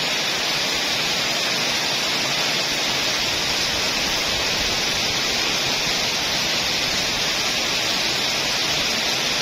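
Heavy rain falling steadily on trees and foliage, a dense, even hiss that doesn't let up.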